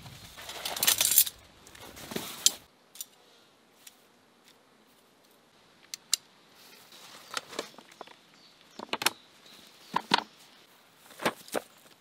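Fabric rustling as a pole bag is handled and unpacked, then light metallic clicks and clinks, often in pairs, as the aluminium tubes of a folding camp table are fitted into their plastic joints.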